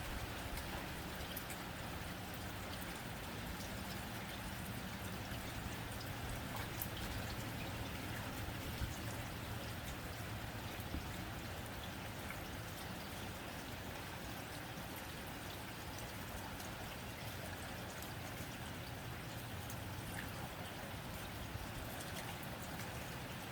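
Steady rain on a tin roof: an even patter with scattered single drop ticks standing out.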